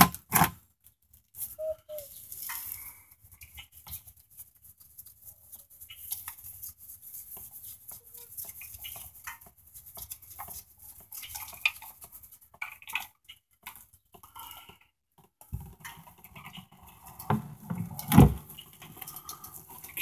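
Oil filter being unscrewed and worked free by a gloved hand: scattered light scrapes, clicks and rustles of metal and rubber, with a louder knock about two seconds before the end.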